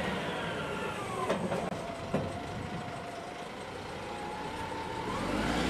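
Heavy-duty forklift running as it drives slowly forward, with a thin whine over the engine noise that drops in pitch in the first second or so, holds, and climbs again near the end.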